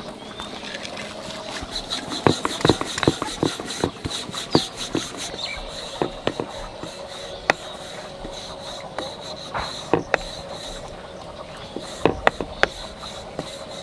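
Wooden rolling pin rolling out a thin sheet of papdi dough on a round stone rolling board: a dull rubbing with irregular clicks and knocks as the pin rolls and is lifted. A faint steady hum runs underneath.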